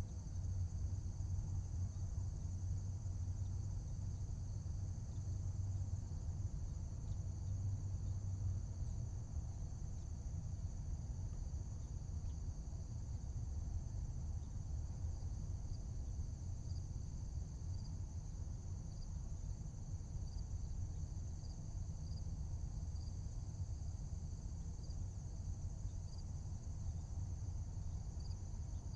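Night-time insect chorus of crickets trilling steadily at a high pitch, under a steady low rumble. From about halfway through, one insect adds short chirps about once a second.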